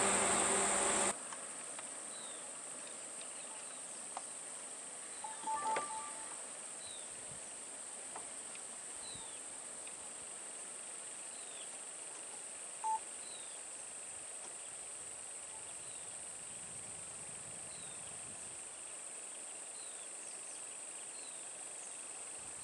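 A vehicle engine runs loud and cuts off suddenly about a second in. Then comes quiet outdoor ambience: a steady high insect drone, short falling chirps repeating every second or two, and brief beep-like tones about five seconds in and again near thirteen seconds.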